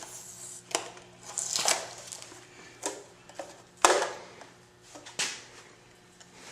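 Irregular handling noises, a series of crinkles, knocks and short rustles, the loudest about four seconds in, over a faint steady low hum.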